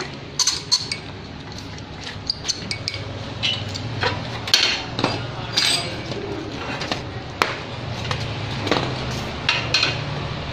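Irregular metallic clinks and knocks of a steel shaft and reel fittings being handled and seated on a plastic-film printing machine's rewinding stand, over a steady low hum.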